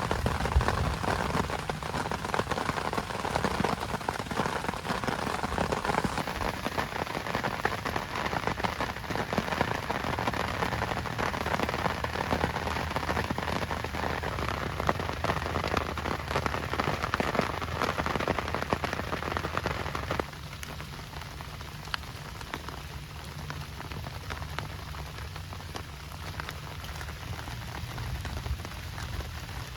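Heavy rain falling steadily, with many individual drops pattering on a surface. About two-thirds of the way through, the sound abruptly becomes quieter and thinner in its middle range.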